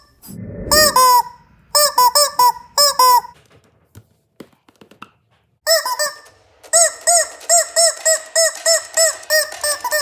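Rubber chicken squeeze toys squeaked as dialogue: short squawking squeaks, each rising and falling in pitch, a burst of several in the first three seconds, then after a pause a fast, regular run of squeaks from about seven seconds in. A dull low thump sounds about half a second in.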